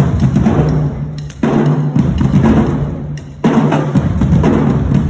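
Marching band playing loudly, with drums prominent. The music dips and comes back in with a sharp, loud hit about a second and a half in and again about three and a half seconds in.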